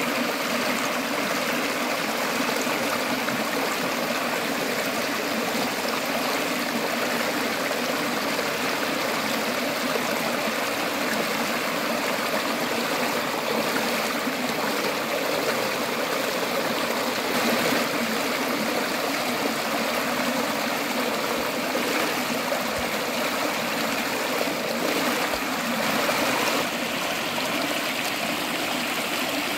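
Shallow river water rushing and gurgling steadily over rocks, briefly a little louder about two-thirds of the way through and again near the end.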